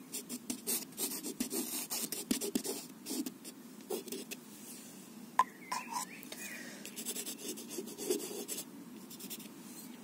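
Irregular scratching, tapping and rubbing of a hand and brush on a watercolour sketchbook page, densest in the first few seconds. A few faint higher tones sound around the middle.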